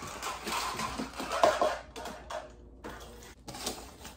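Plastic gym containers, a shaker bottle and a tub of pre-workout powder, being handled and set down on a kitchen counter: a loud rattling clatter with several sharp knocks.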